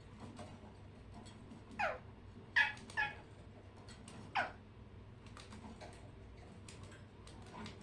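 Pet birds calling: four short calls that slide down in pitch, two close together in the middle. Faint scattered clicks run underneath.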